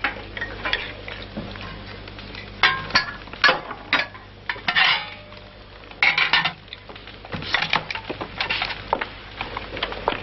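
Metal spoon clinking and scraping against a bowl as a boy eats hungrily: a string of short clinks with a few longer scrapes.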